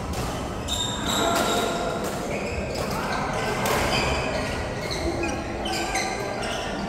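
Doubles match play on an indoor court: a series of sharp hits and thuds from the rally, with voices in the background.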